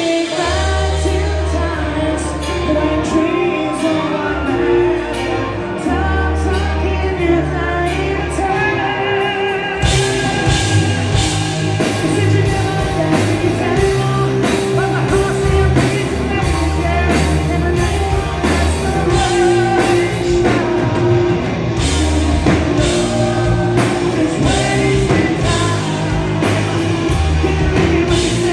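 Live hard rock band playing with a lead singer, recorded from within the crowd: a lighter passage with long held bass notes under the vocal, then the drums and full band come in about ten seconds in.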